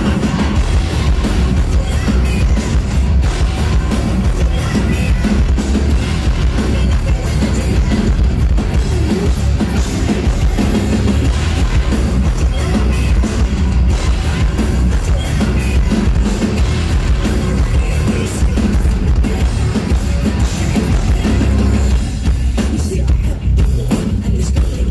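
Live heavy metal band playing loud, with drums and heavy guitars, as picked up from within the concert crowd.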